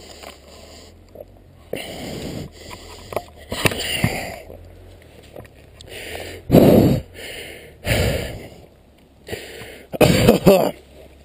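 A rider's hard breathing close on a lapel microphone: heavy, rasping breaths about every one and a half to two seconds, the loudest near the end. He is out of breath from riding.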